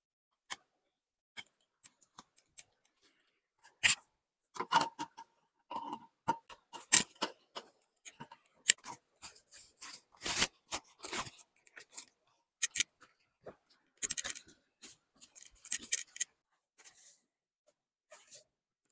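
Irregular clicks, knocks and rustles of a folding metal-framed camp table being opened out and a bag set down on it, with a short squeak about five seconds in.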